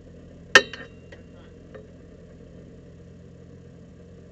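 Supercharged BMW E46 M3's straight-six engine idling steadily. About half a second in comes one sharp click with a brief metallic ring, followed by a couple of fainter ticks.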